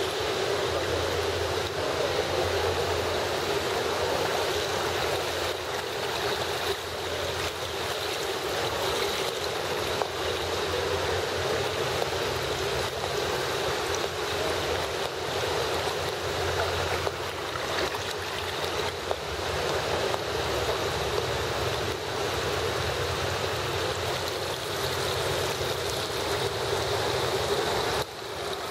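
Steady rushing and lapping of water in an indoor swimming pool.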